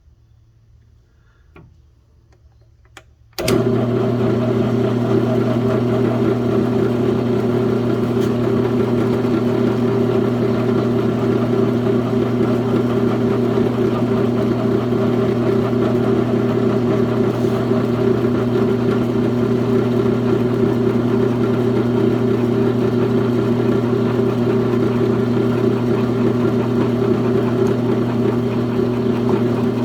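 A small milling machine's electric motor switched on about three and a half seconds in and running at a steady speed with an even hum, ready to drill and mill the epoxy-built-up chainsaw housing. A few light clicks come before it starts.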